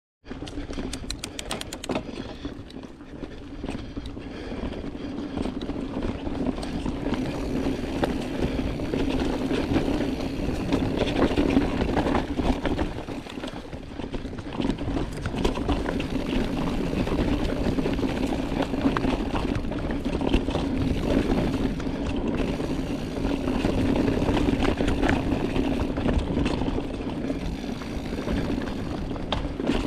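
Full-suspension mountain bike (Giant Trance Advanced) descending a dirt trail at speed: a continuous rush of knobby tyres and wind, with the chain and frame rattling and clicking over roots and rocks. A run of quick even ticks sounds in the first couple of seconds.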